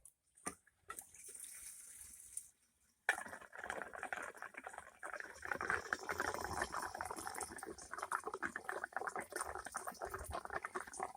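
Gasoline pouring into the wood chipper's fuel tank: a continuous splashing pour that starts suddenly about three seconds in.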